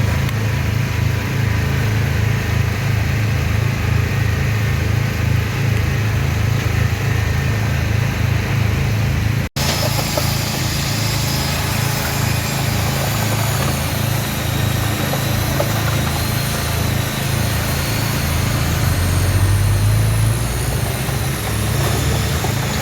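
An engine running steadily with a deep hum, cutting out for an instant about nine and a half seconds in.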